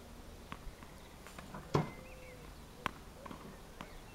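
Tennis ball machine firing topspin balls onto a hard court: a dull thump a little under two seconds in and a sharper crack about a second later, with a few light ticks between.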